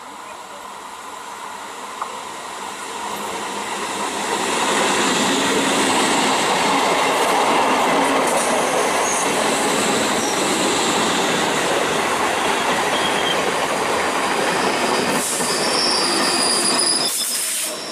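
Indian Railways electric multiple unit (EMU) local train approaching and running past close by: wheel-on-rail rolling noise builds over the first four or five seconds, then holds loud and steady as the coaches go by. A thin high wheel squeal rises out of it near the end.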